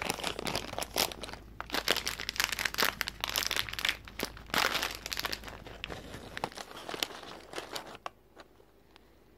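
Packaging of a dog advent calendar crinkling and tearing in quick crackles as a stuck treat is worked out of its compartment. The noise stops about eight seconds in.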